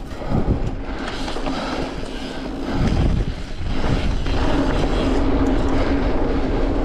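Mountain bike rolling fast along a dirt singletrack trail: steady tyre and rolling noise with knocks and rattles as the bike hits bumps. The sound gets louder about three seconds in, and a steady hum joins it about a second later.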